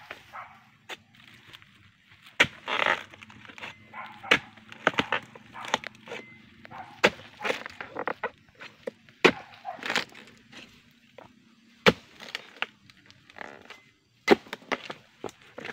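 Long-handled steel harvesting chisel chopping into the fibrous frond bases and bunch stalks of an oil palm: a run of sharp chops and cracks at irregular intervals, often about a second apart.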